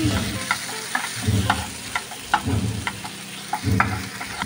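Spatula scraping and tapping against a nonstick frying pan as onions and paste are stirred, in strokes about once a second, over the sizzle of the onions frying in oil.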